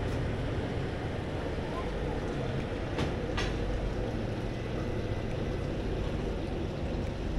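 Steady low rumble of a boat engine running on the canal, with two sharp knocks close together about three seconds in.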